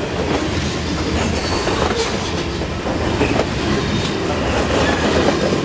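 Covered hopper cars of a grain train rolling past close by: a steady rumble of steel wheels on rail, with irregular clacks as the wheels cross rail joints and a few short, faint high wheel squeals.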